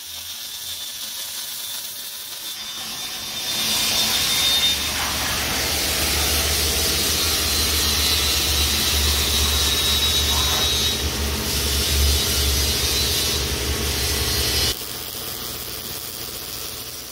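Welding arc crackling steadily along the seams of a steel bumper. It grows louder about three and a half seconds in and drops off sharply near fifteen seconds.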